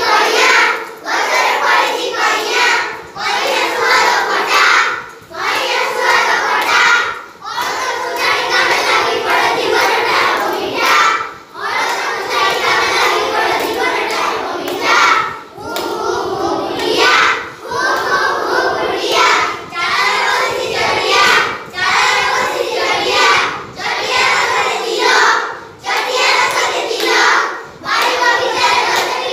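A group of young children singing an Odia action rhyme in unison, with hand clapping. The singing comes in short phrases about two seconds apart.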